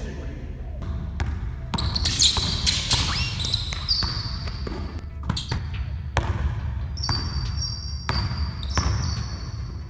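Basketball dribbled on a hardwood gym floor: irregular bounces, with short high-pitched squeaks from sneakers on the floor in between.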